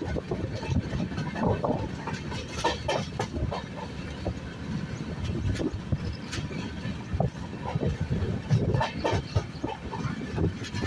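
Express train running at speed on the line: a steady low rumble of wheels on rails with irregular clatter and knocks from the LHB passenger coach.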